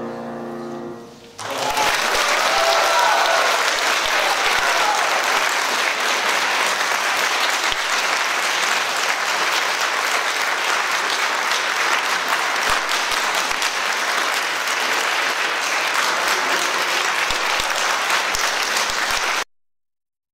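Audience applauding: a steady clatter of clapping that starts about a second and a half in and cuts off abruptly near the end.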